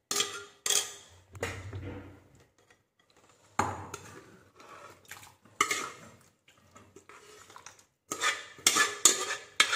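Metal pressure cooker pot clinking and scraping as thick vegetable curry is tipped and scraped out of it into a bowl. Several separate clinks spread out, then quicker ones near the end.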